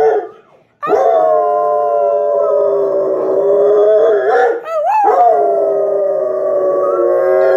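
Dog howling for another dog: after a short pause, one long, drawn-out howl, broken near the middle by a quick wavering rise in pitch, then a second long howl that slowly falls in pitch. Real loud.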